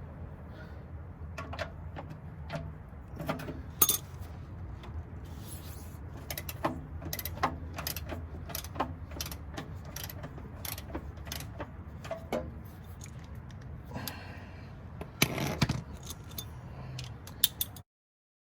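Ratcheting socket wrench clicking irregularly while loosening the engine oil drain plug, over a steady low hum.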